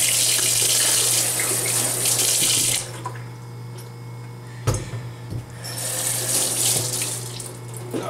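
Kitchen faucet running into a stainless steel sink for almost three seconds, then shut off. A sharp knock follows a couple of seconds later, and the water runs again for about a second and a half, over a steady low hum.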